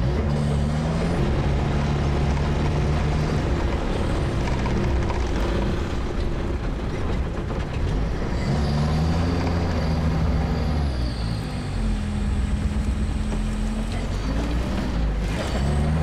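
All-terrain vehicle's engine running under way, its note rising and falling several times as it changes speed.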